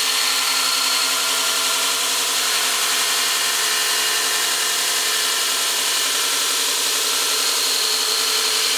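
Belt grinder running with a forged steel knife blade pressed against the abrasive belt: a steady grinding hiss of steel on the belt, sending off sparks.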